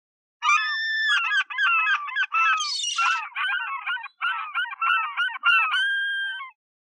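Gulls calling: a rapid run of harsh, repeated squawks, many sliding downward in pitch. They start about half a second in and stop shortly before the end.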